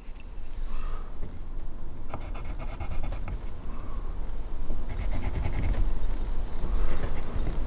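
Scraping and rubbing on wood, with two spells of quick, even strokes about two seconds and five seconds in.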